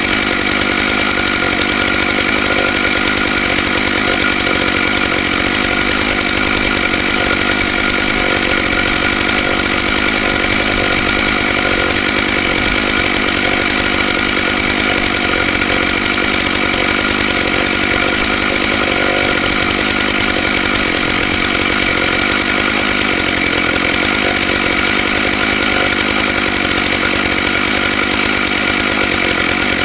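Stihl MS661 two-stroke chainsaw running steadily at full throttle with a ripping chain, cutting lengthwise through a log on a chainsaw mill. The engine note stays even and unbroken throughout.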